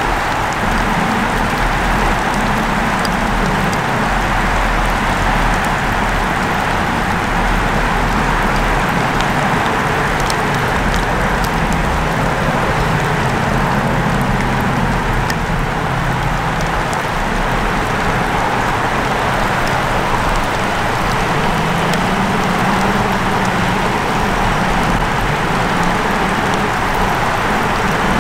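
Steady rain hiss with scattered tapping drips. A faint low hum comes and goes underneath.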